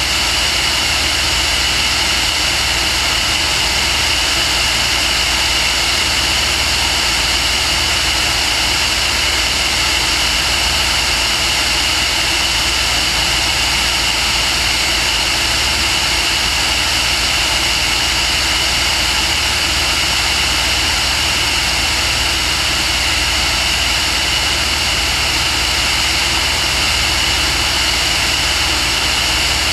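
Aircraft carrying the camera in steady flight: engine and propeller noise mixed with rushing air, unchanging throughout, with a steady high whine on top.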